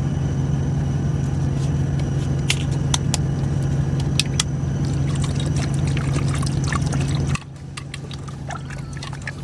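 Steady low drone of an idling truck engine heard inside the cab, with light clicks and rustles from handling food packaging. The drone drops away abruptly about seven seconds in, leaving only the quieter clicks.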